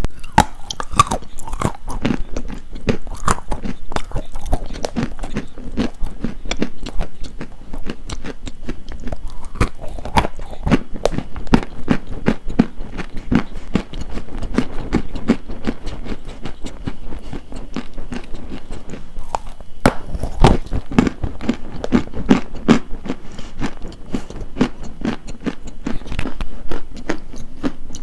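Close-miked crunching of something brittle: a dense, uneven run of sharp crunches and crackles, as in biting and chewing, with a few louder snaps about ten and twenty seconds in.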